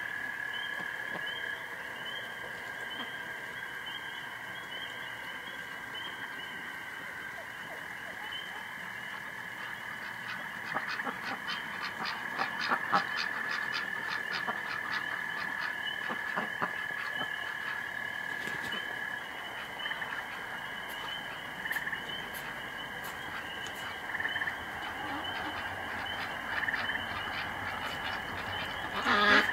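Night chorus of frogs calling steadily, joined from about ten to eighteen seconds in by a rapid pulsed call at about three pulses a second. A brief louder sound comes near the end.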